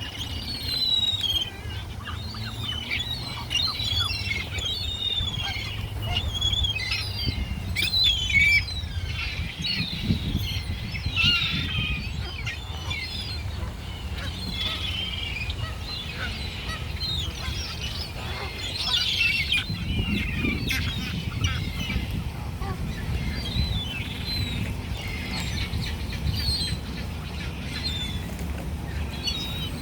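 A flock of wild birds calling over one another, a dense chatter of short high calls with no let-up, over a low rumble.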